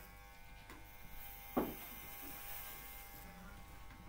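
Electric hair clippers running with a steady buzz, with a single sharp knock about a second and a half in.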